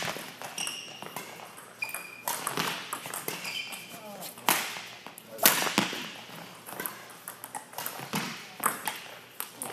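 Badminton rally: a series of sharp racket strikes on the shuttlecock, a second or two apart, with shoes squeaking briefly on the court floor between them.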